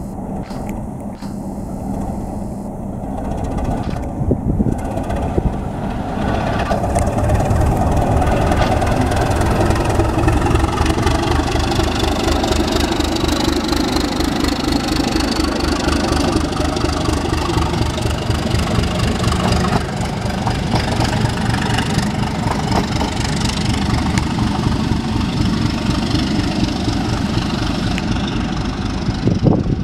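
ČSD class T478.1 'Bardotka' diesel locomotive passing close by with its V12 diesel engine running. The engine note grows louder from about six seconds in as the locomotive comes alongside. It stays loud as the locomotive and its coaches roll past.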